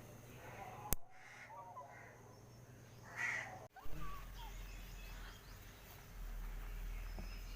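Faint bird calls and chirps against background noise, with a sharp click about a second in and a short louder burst a little after three seconds.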